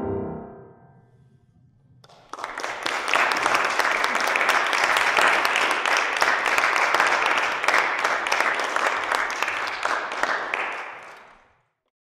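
The last chord of a viola and piano dies away, then audience applause starts about two seconds in and fades out near the end.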